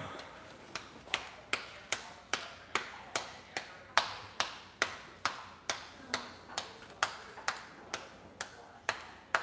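Hands patting a ball of masa dough into a tortilla, a steady run of slaps about two and a half a second.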